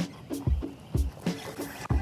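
Background music with a steady drum beat of about two beats a second and pitched notes over it.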